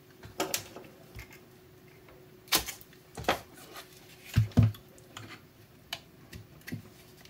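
Scattered clicks and knocks of a DeWalt FlexVolt battery's hard plastic cell holder and 18650 lithium-ion cells being handled and pulled out of the pack. The loudest knocks come about two and a half seconds in and again, as a close pair, around four and a half seconds.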